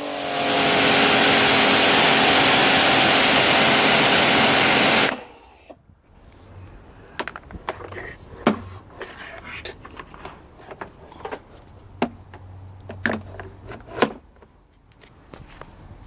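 Kärcher K7 pressure washer running and spraying: a loud hiss of water over the steady hum of the motor and pump, which cuts off suddenly about five seconds in. A much quieter run of scattered clicks and knocks follows.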